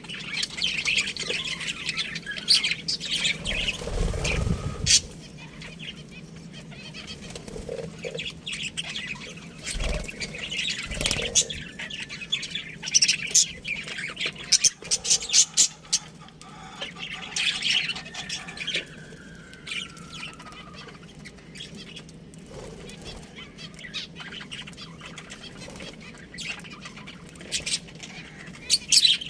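Budgies (budgerigars) chirping and chattering in repeated bursts of high calls, mixed with many sharp clicks and a few dull thumps.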